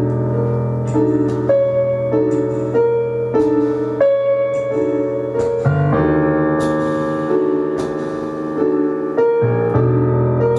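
Live keyboard music in a piano sound: a slow repeating figure of mid-range notes over a held low bass note, which shifts to another pitch about halfway through and returns near the end.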